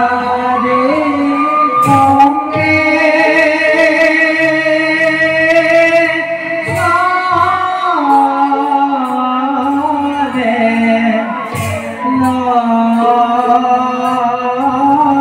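Bhaona stage song: a voice singing long, held, wavering notes over instrumental accompaniment, with occasional low strokes beneath.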